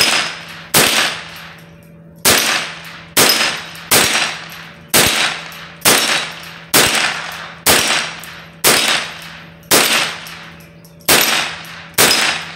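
Ruger 10/22 semi-automatic .22 rimfire carbine firing steadily, about one shot a second with a short pause near the end, at a steel plate target. Some shots are followed by a brief high ring of the steel plates being hit.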